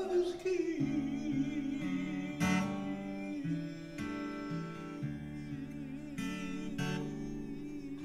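Acoustic guitar played and sung: a held sung note with vibrato dies away about a second in, then the guitar carries on alone with picked and strummed chords.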